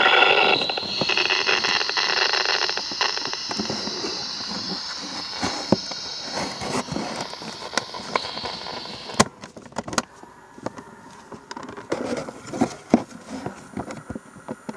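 GE 3-5346A battery-operated cassette recorder running in Play with no cassette inside, its speaker giving out a strange hissing, crackling noise that fades and stops about nine seconds in. After that come a few light clicks and knocks as the recorder is handled.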